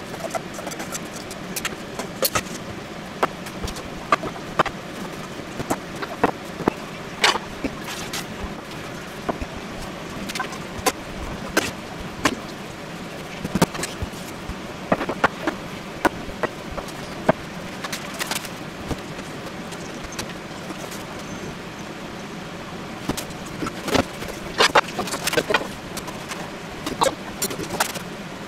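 Kitchen clatter while filling sandwich rolls: irregular clinks and knocks of a spoon against a stainless steel bowl and of dishes being handled, over a steady background noise.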